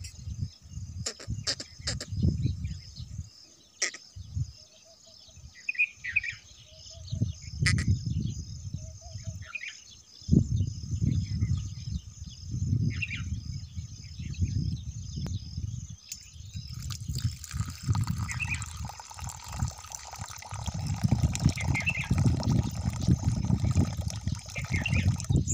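Insects buzzing steadily, with a few short bird chirps and low rumbling underneath. About two-thirds of the way through, a thin stream of water starts pouring into a shallow dish and keeps splashing in.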